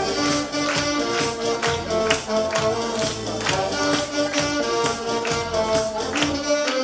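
Saxophone duet: two alto saxophones playing a melody in held notes over a backing track with a steady drum and percussion beat.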